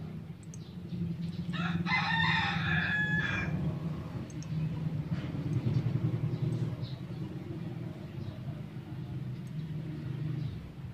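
A rooster crowing once, about two seconds in, a call lasting roughly two seconds, over a steady low rumble.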